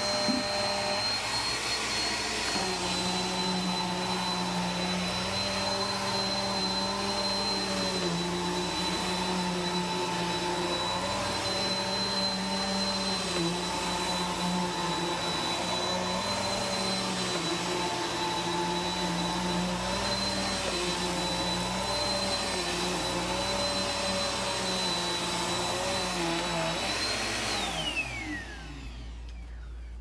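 Upright vacuum cleaner running steadily, its motor hum shifting slightly in pitch every couple of seconds as it is worked over the carpet. About two seconds before the end it is switched off and the motor winds down in a falling whine.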